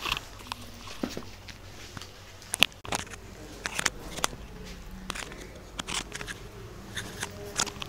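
Irregular clicks, knocks and rustles of bags and a phone being handled while someone moves about a small room, with the sharpest knock about two and a half seconds in.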